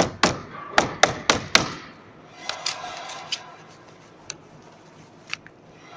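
Clatter of freshly CNC-cut aluminium-plastic composite and acrylic sheet panels being pulled from the router bed and handled: a quick run of about seven sharp knocks in the first second and a half, then a few scattered taps.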